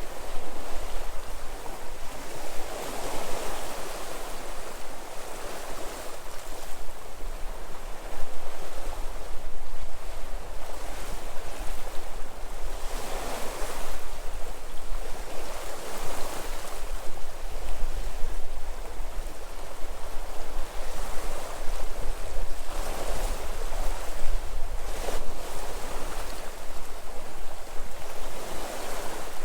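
Sea waves washing onto the shore, a continuous surf wash that swells and falls every few seconds, with low wind rumble on the microphone.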